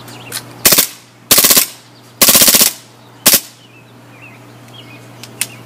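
Automatic gunfire in four short bursts of rapid shots, the second and third bursts the longest, followed near the end by two faint clicks.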